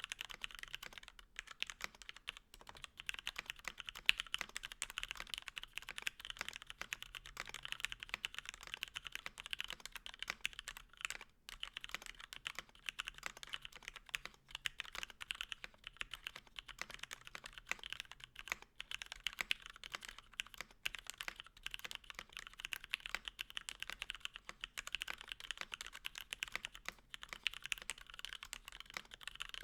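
Steady, fast typing on a custom mechanical keyboard: an acrylic-cased Tofu65 with lubed Gateron Black linear switches with milky top housings, an aluminum plate with plate foam, and PBT keycaps. The keystrokes run as a dense stream of clicks with a few short pauses.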